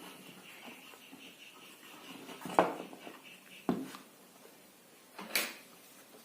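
A few separate knocks and clatters of small hard objects being handled and set down, the third with a short scrape. A faint, high pulsing tone fades out about halfway through.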